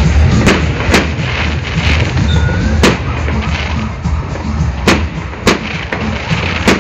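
Aerial fireworks display: about six sharp bangs of bursting shells over a continuous rumble and crackle of launches and explosions.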